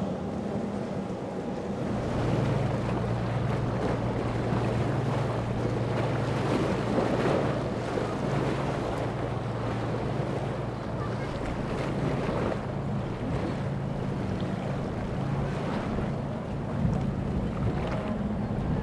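Outboard-powered boats running at speed through choppy water: a steady engine drone under the rush of hull spray and wake, with wind buffeting the microphone. The engine tone steps up about two seconds in.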